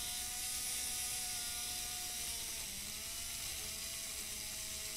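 A vintage model locomotive's small three-pole electric motor running under track power, spinning the truck's wheels while an abrasive cleaning block scrubs the wheel treads. A steady whine with a high scraping hiss, the pitch dipping and wavering about halfway through as the block presses on the wheels.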